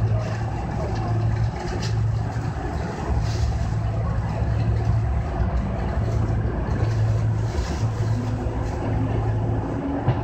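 Kintetsu 6020-series electric train running on the rails as heard from the driver's cab, a steady low rumble and hum, with a faint motor hum rising in pitch near the end as it gathers speed.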